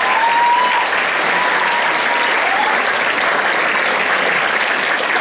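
Audience applauding loudly and steadily in a school auditorium after an orchestra piece ends, with a few high, gliding whistle-like tones over the clapping in the first couple of seconds.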